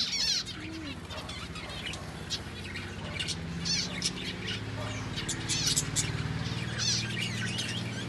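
A flock of zebra finches calling, with many short, high, nasal chirps overlapping throughout. A low steady hum joins in from about three seconds in.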